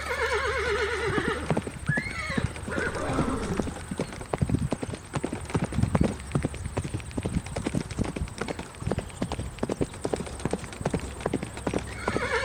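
A horse whinnies, a shaky, wavering call in the first second or so, followed by hooves clip-clopping in a quick, irregular run of knocks.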